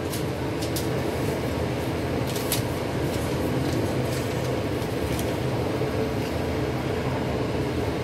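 Steady machine rumble and hiss from running kitchen equipment, with a few light clicks in the first couple of seconds.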